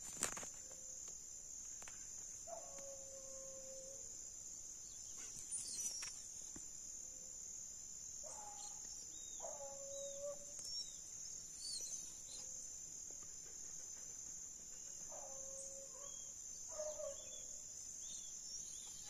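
Hunting hounds baying in the distance on a paca's trail, faint drawn-out calls every few seconds. A steady high insect drone runs underneath.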